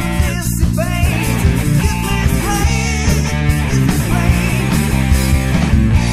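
Rock band's studio recording: electric guitars, bass and drums playing together, with a guitar line bending in pitch.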